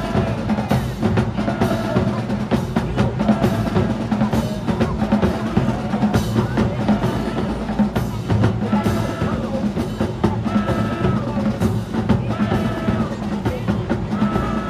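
Marching band playing, led by the drumline's bass and snare drums keeping a steady beat, with held horn notes coming in over the drums in the second half.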